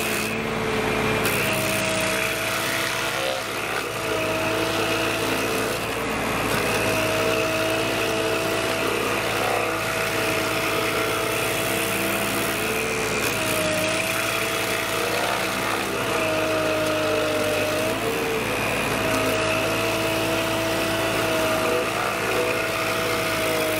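Compact tractor's engine driving a PTO-powered Baumalight Stumpblaster 3P24 stump grinder, running steadily with its pitch sagging briefly every few seconds.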